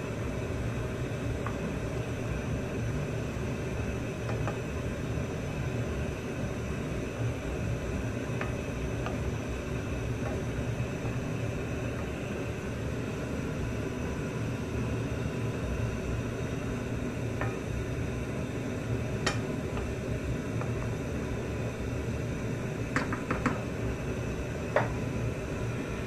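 A few light knocks of a wooden spatula against a frying pan of simmering sauce, mostly near the end, over a steady low hum and hiss from the stove.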